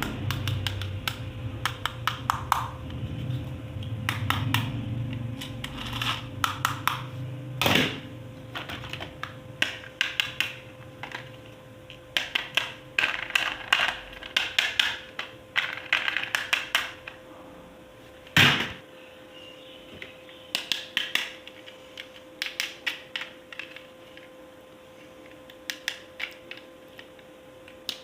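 Hard plastic toy parts and packaging being handled: irregular runs of quick clicks and taps, with two louder knocks, one about a third of the way in and one about two-thirds in.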